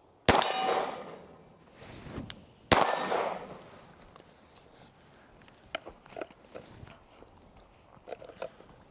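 Two 9mm Glock 45 pistol shots about two and a half seconds apart, each with a ringing clang that dies away over about a second. A few faint clicks and knocks follow.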